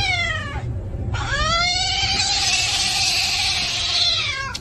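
A cat meowing in long, drawn-out calls. One meow ends about half a second in, and a second, longer one runs about three seconds before it tails off near the end, over a steady low hum.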